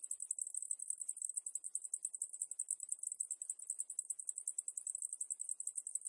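Cicadas calling: a continuous high-pitched buzz that pulses rapidly, about ten pulses a second.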